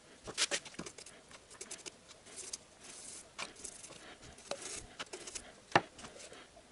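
Solvent being poured over a plastic CVT oil filter held above a basin: irregular splashes, drips and small knocks, with a sharper knock near the end.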